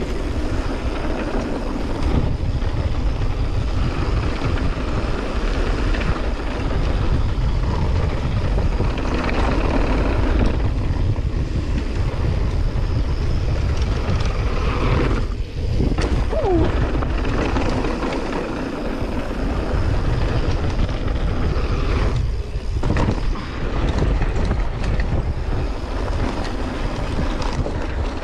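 Wind buffeting an action camera's microphone while a mountain bike descends a dirt trail at speed, with steady low rumble and rattle from the tyres and bike over the rough surface.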